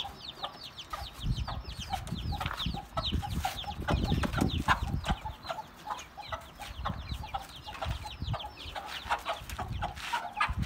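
Aseel chickens: a constant stream of short, high, falling peeps from chicks over lower hen clucks. Thumps and rustling from wooden coops being handled come in the middle and again near the end.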